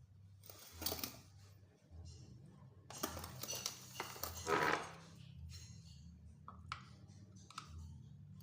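Clicks, taps and scrapes of the hard plastic parts of a grass cutter's air filter housing being handled, with a louder scraping rustle about four and a half seconds in, over a steady low hum.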